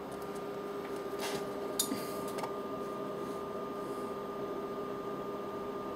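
Steady low electrical hum with a faint whine in a small room, broken by a few soft short clicks or rustles about one and two seconds in.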